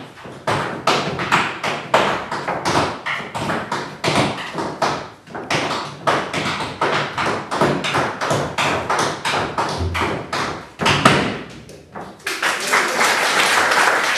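A quick, irregular run of sharp percussive knocks and slaps. About twelve seconds in it gives way to a steady wash of applause.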